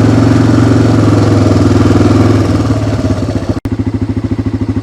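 Engine of a small ride-on vehicle running steadily, then easing off to a slower, pulsing idle about two and a half seconds in. The sound breaks off for an instant near the end.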